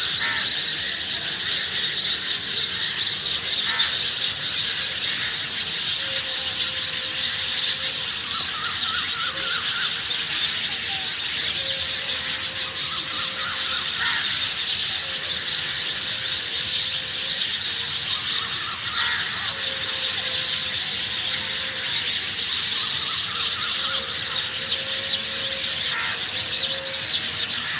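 A flock of sparrows chirping and chattering continuously, many birds calling at once in a dense, high-pitched twitter.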